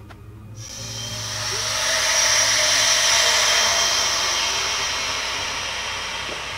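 Air hissing into a vacuum chamber through its opened valve as the vacuum is released after degassing wood soaked in polyurethane. The hiss swells over the first couple of seconds, then slowly tapers off as the pressure evens out.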